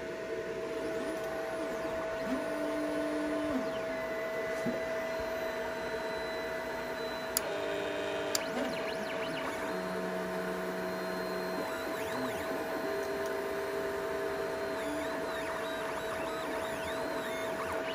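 Stepper motors of a LowRider v3 DIY CNC moving the plasma torch head through a dry test cycle with the torch off. The motors whine in changing pitches that glide up and down as the axes start, stop and change speed, over a steady hum. Two sharp clicks come near the middle.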